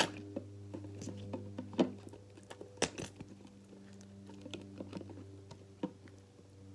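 Slime being squished and worked by hand, giving scattered small clicks and pops, with a steady low hum underneath.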